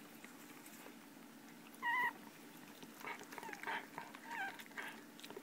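Newborn Shetland sheepdog puppies squeaking: one sharp, high squeak about two seconds in, then a run of fainter squeaks.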